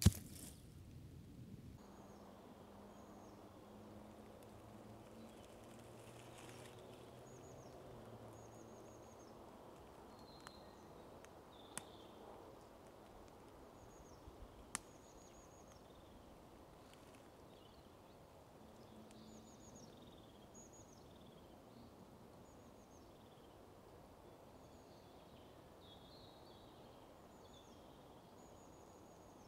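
Faint woodland ambience with small birds chirping, short high calls repeating throughout. A sharp click right at the start and a couple of faint ticks around the middle.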